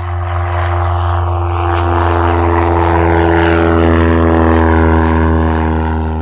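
Propeller aircraft engines droning steadily and loudly, with a strong low hum. The sound begins and cuts off abruptly, like an edited-in sound effect.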